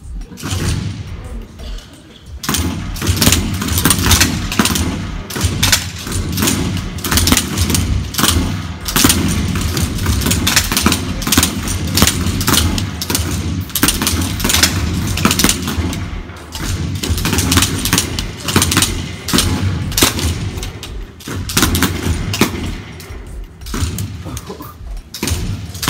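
Simulated rifle fire from an Engagement Skills Trainer's M16 training rifles: many rifles firing at once in rapid, overlapping shots. The shots start about two seconds in and go on without a break, easing briefly near the end.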